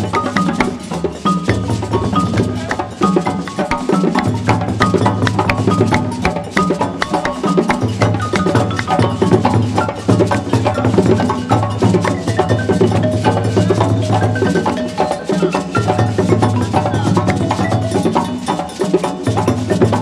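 West African drum ensemble playing: djembe hand drums over stick-struck dundun barrel drums, in a dense, fast interlocking rhythm.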